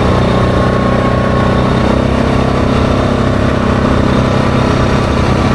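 ATV engine running steadily as the quad cruises along a gravel trail.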